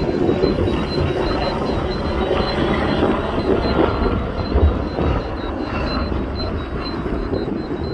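Lava fountain from an erupting basaltic volcanic vent: a steady, deep churning rumble full of small irregular bursts as molten lava is flung up, with one louder thump about four and a half seconds in.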